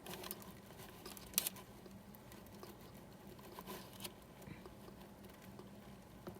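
Pet hedgehog making soft scattered clicks and patters, with one sharp click about one and a half seconds in and a few more around four seconds in.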